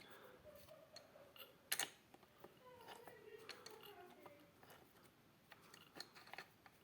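Faint metallic clicks and ticks from the Yamaha YZF600R Thundercat's opened gearbox as the shift mechanism is turned by hand through the gears, with one sharper click about two seconds in.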